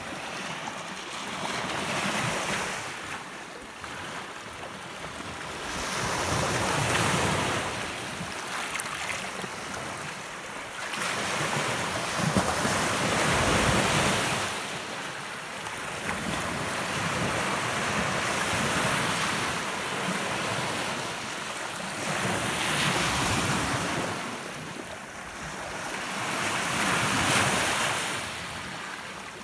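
Small Lake Superior waves breaking on a sandy beach and washing back, the surf swelling and fading about every four to five seconds.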